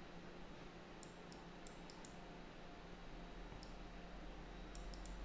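Faint computer mouse clicks, a few in quick succession about a second in and a small cluster near the end, over a low steady hum.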